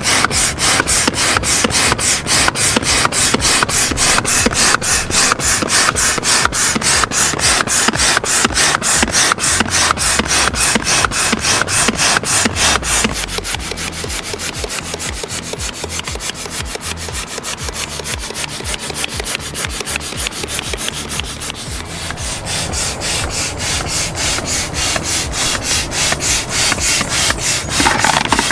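Hand air pump worked in fast, even strokes, each stroke a short rush of air, pumping up a PVC inflatable boat's air chambers. The strokes keep a steady rhythm throughout, turning somewhat quieter and duller about halfway through.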